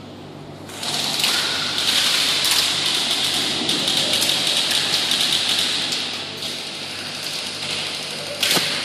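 Many airsoft guns firing at once, a dense rapid patter of shots and BB hits that starts about a second in and thins out after about six seconds. A single sharp knock near the end.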